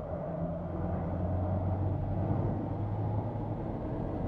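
Volkswagen car heard from inside the cabin, accelerating hard through about 80 km/h along a wet test track: a steady engine hum under load with even tyre and spray noise. The car is building toward the speed at which the test tyre aquaplanes.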